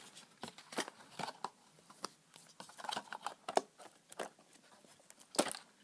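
Clear plastic iPod Touch packaging tray being handled and fitted back into its box, with scattered clicks and crinkles; the sharpest click comes near the end.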